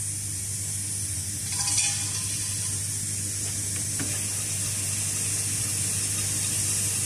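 Steady electrical hum and high hiss from an automatic spring-making machine, with no working strokes. A short squeaky tone comes about a second and a half in, and a single click about four seconds in.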